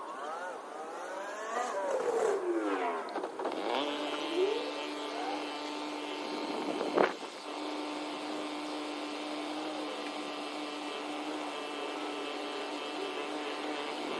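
An engine rises and falls in pitch, then settles to run at a steady pitch, with one sharp knock about seven seconds in.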